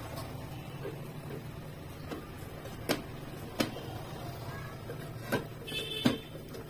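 Several sharp taps about a second apart, over a low steady hum: wet hands patting a ball of ragi mudde on a ghee-greased steel plate.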